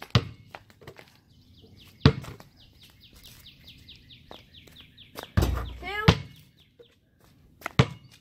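A basketball thumping as it is bounced and shot: several sharp knocks, the heaviest thud about five and a half seconds in. In the middle, a bird sings a fast run of repeated high chirps for a few seconds.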